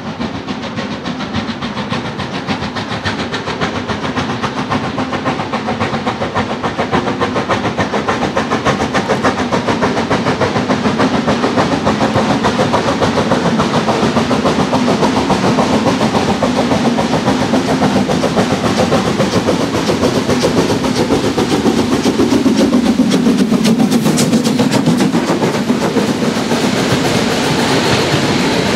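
Narrow-gauge steam locomotive approaching and passing, its exhaust chuffing and growing steadily louder as it nears. Near the end the carriages roll by close, their wheels clattering on the rails.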